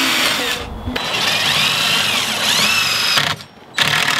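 Cordless drill driving screws through a metal bracket into a wooden frame. It runs in spurts and stops briefly twice, and the motor pitch rises and falls as the screws bite.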